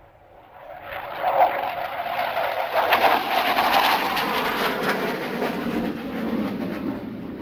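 Jet aircraft passing the airfield: the engine noise swells suddenly about a second in, stays loud and crackling, then drops lower in pitch as it goes by.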